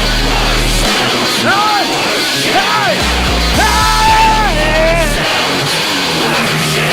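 Loud, distorted trap-metal music with a heavy bass line and a dense distorted wall of sound, over which a high pitched line swoops up and down several times and then holds a long note.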